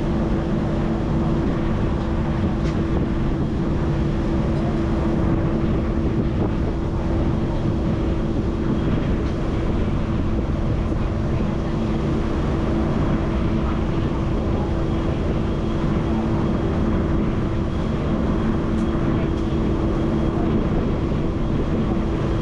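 Passenger ferry's engines running in a steady drone with an even low hum, over the rush of water and wind.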